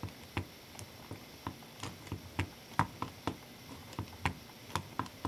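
A Lego Technic tandem-pivot suspension rolled back and forth by hand over fingers on a wooden desk: its plastic parts and wheels give faint, irregular clicks and taps, about two a second.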